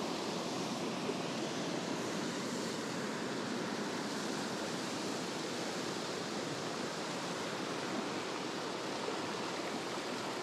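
Mountain stream running: a steady rush of flowing water with no breaks or distinct events.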